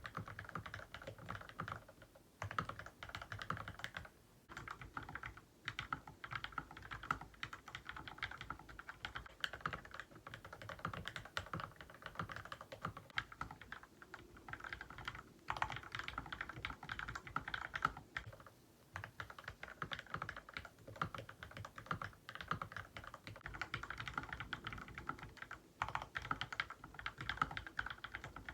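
Fast, continuous typing on an LK67 mechanical keyboard with Gateron KS-3 Milky Yellow Pro linear switches, with a few short pauses. The sound switches several times between the stock board and the modded one: lubed switches, a three-layer tape mod, and a case filled with clay and polyfill.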